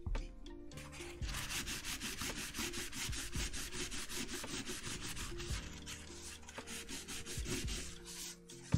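Folded paper towel rubbed rapidly back and forth over a small brass emblem, polishing it with Brasso. The quick scrubbing strokes start about a second in and stop shortly before the end.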